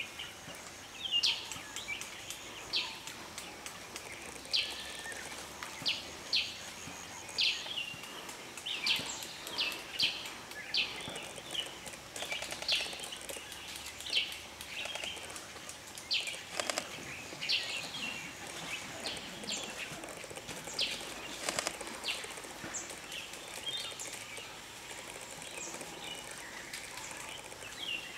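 Birds calling in forest: a long series of short, sharp high calls, about one a second, over a faint steady background, thinning out in the last few seconds.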